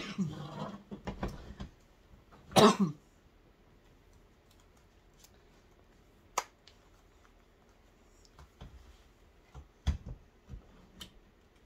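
A single cough about two and a half seconds in, followed by quiet handling with a few light clicks and taps as a ball-jointed doll is lifted out of a small wooden rocking chair and set back in it.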